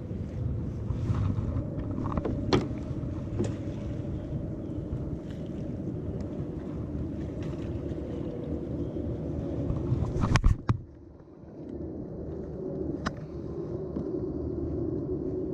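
Steady low wash of water and wind around a fishing kayak, with a few sharp knocks and clicks. The loudest knock comes about ten seconds in, after which the sound briefly drops quieter.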